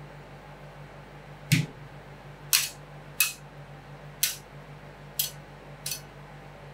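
Metal spatulas striking the steel plate of a rolled ice cream freezer: six sharp clacks at uneven spacing, as ingredients are smashed and chopped into the cream. A steady low hum runs underneath.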